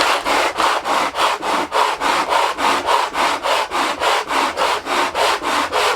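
Wooden dobro body being scrubbed back and forth on sandpaper over a granite slab, in fast, even strokes of about five a second. The rim is being sanded until the pencil marks on it are gone.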